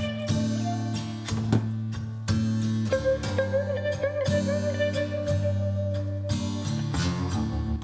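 Background music with guitar and a held melody line over a steady beat.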